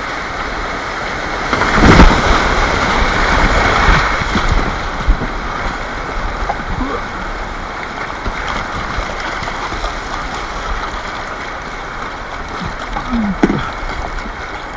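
Rushing whitewater of a river rapid churning around a kayak, with a louder surge of splashing about two seconds in.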